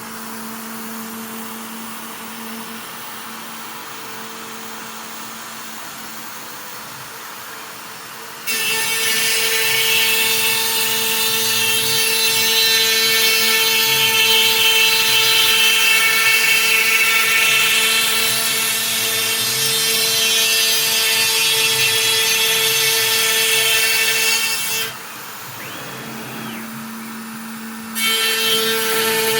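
CNC router spindle running with a steady tone at a low speed setting. About a third of the way in, its quarter-inch cutter starts milling a Sitka spruce guitar top, a much louder cutting noise. Near the end the cutting drops back to the bare spindle tone for a few seconds, then resumes.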